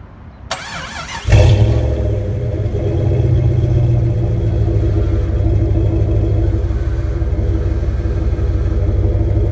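1997 Jeep Grand Cherokee V8 started at the tailpipe: a brief whirr of cranking, then the engine catches about a second in with a loud flare and settles into a steady, deep, rumbling idle through an aggressive-sounding exhaust.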